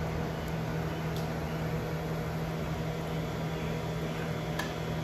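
Hot-wire foam cutter's transformer and heat-sink cooling fan running: a steady hum, with a couple of faint ticks.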